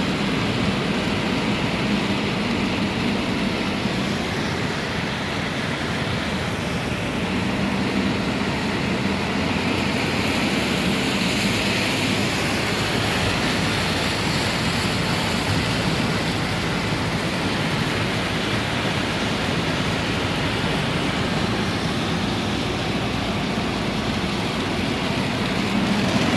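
Steady noise of heavy rain mixed with a car driving on a wet road, with a low drone of engine and tyres under the hiss of the rain.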